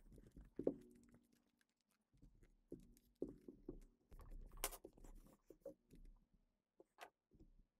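Faint handling sounds with a few scattered light clicks and knocks: the plastic top case of a Gamakay LK67 keyboard being fitted and pressed closed over the plate.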